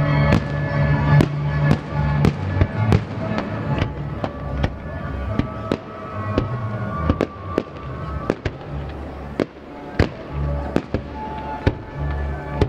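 Aerial firework shells bursting in a rapid string of sharp bangs, about two a second, over music with a heavy bass line. The bangs thin out and the sound grows a little quieter in the middle, with one especially loud bang near the end.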